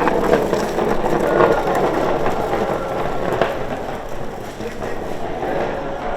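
Wooden bongrace cart rolling on its hard wheels over rough ground: a steady grinding noise with scattered clicks and knocks.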